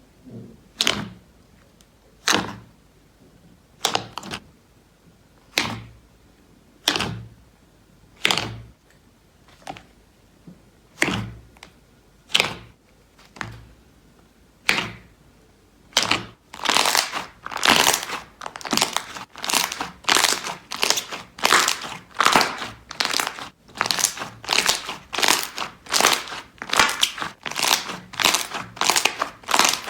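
Slime being pressed and squeezed by hand. First come single sharp pops about once a second or so, then about halfway through a louder, denser crunching sets in, about two squeezes a second.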